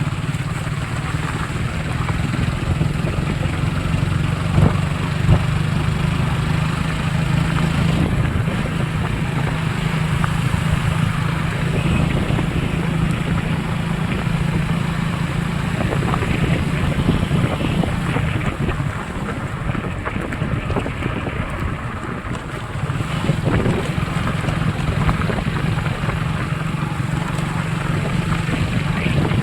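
Motorcycle engine running steadily while riding along, with wind noise on the microphone. The engine note eases for a few seconds about two-thirds of the way through, then picks up again.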